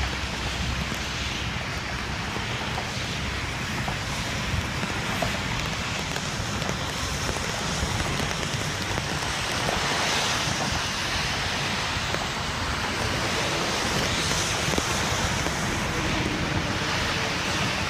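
Steady rushing noise of wind and rain with a low rumble, getting a little louder about ten seconds in.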